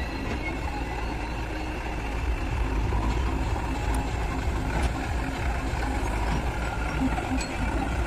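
Diesel engines of a Massey Ferguson tractor and a JCB 3DX backhoe loader running together, a steady low rumble as the tractor moves its trailer in beside the digging backhoe.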